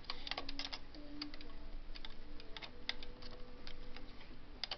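Small irregular clicks and taps of a single-prong transfer tool and the needles of a Bond Classic Plus knitting machine as a stitch is lifted onto the neighbouring needle and the empty needle is pushed back, several clicks a second.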